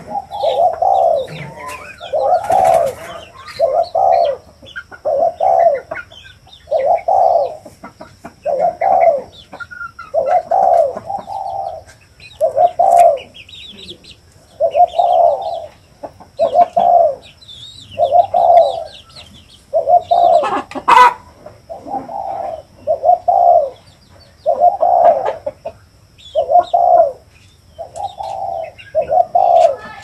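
Caged spotted dove cooing over and over: low, mellow coos, each under a second long, repeating about once a second.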